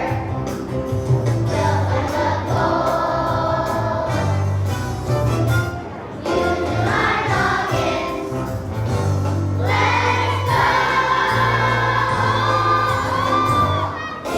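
Choir of young children singing a song with instrumental accompaniment and a sustained bass line.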